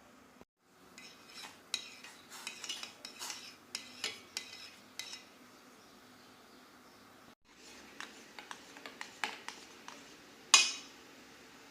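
Kitchen utensils clinking and scraping against a dish in a run of light, irregular taps, then a second run ending in one louder, ringing clink near the end.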